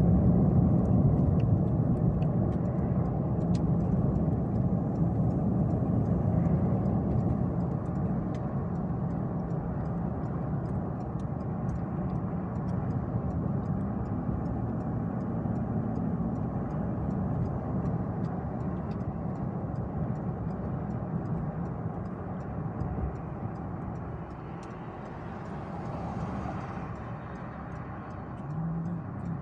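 Steady road noise inside a moving car: a low rumble of tyres and engine at speed, easing slightly as it goes. A brief swell of hiss comes near the end.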